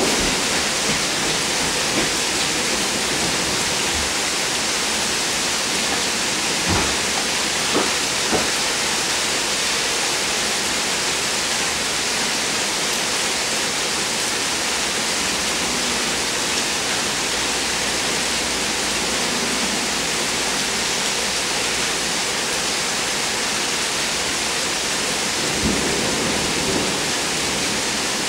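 Heavy thunderstorm rain pouring down in a steady, even hiss. A few sharp ticks stand out about seven seconds in and again near the end.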